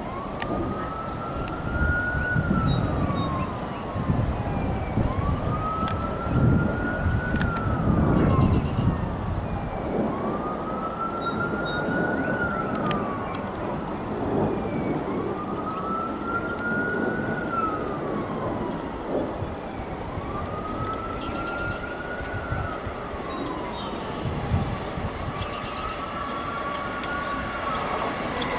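Emergency vehicle siren in slow wail mode, its pitch rising and falling about once every five seconds, over a steady rumble of background noise.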